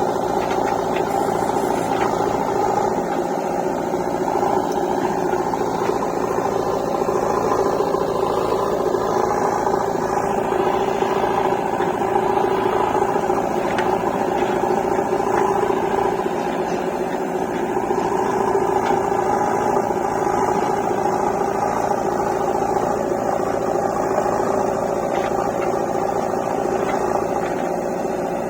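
Diesel engine of a JCB 3DX backhoe loader running steadily, a constant drone with little change in pitch.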